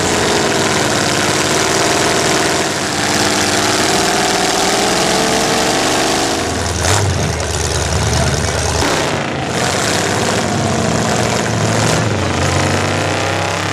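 Lifted mud-bog pickup truck's engine revving hard as it churns through deep mud. Its pitch rises and falls for the first half, then settles into a lower, steadier run.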